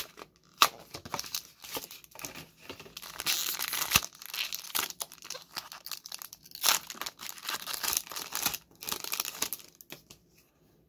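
Foil Pokémon booster pack wrapper being torn open and crinkled in the hands: a run of sharp crackles and rips that stops near the end.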